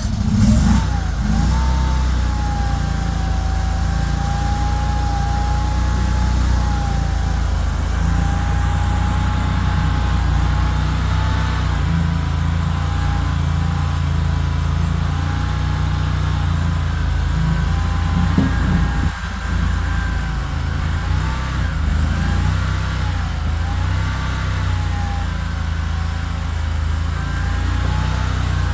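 Mini skid steer's engine running steadily under way, with a higher whine that wavers up and down above the engine note.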